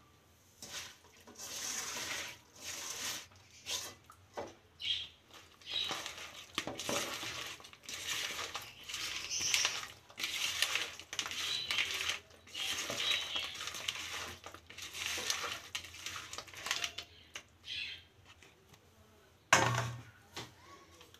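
Irregular clinks and scrapes of raw vegetables and a plastic bowl against an aluminium karai as ingredients are tipped in and moved about in the pan, with a louder single knock near the end. The stove is not yet lit, so there is no sizzling.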